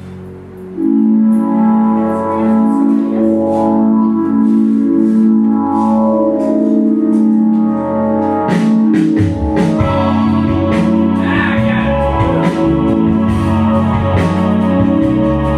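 Music: held keyboard chords that swell in about a second in, joined about halfway through by a bass line and a steady beat.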